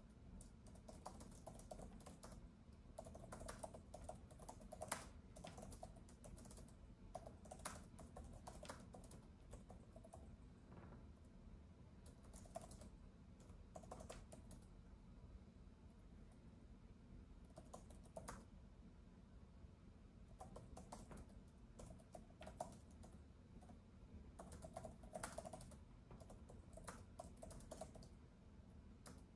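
Faint typing on a keyboard: quick clicking keystrokes in irregular bursts with short pauses, over a low steady background hum.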